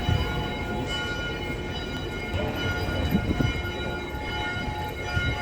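City street noise: a low rumble with several steady high-pitched whining tones held throughout, and a few brief louder swells in the rumble.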